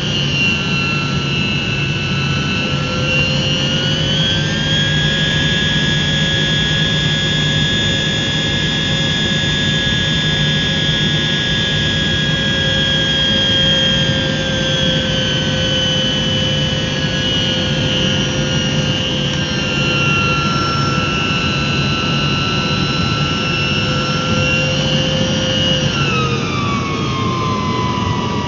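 Tu-154 jet engines heard from inside the cabin on final approach: a steady rumble with a multi-tone whine that steps up in pitch a few seconds in, holds, then drops sharply near the end as power comes back over the runway.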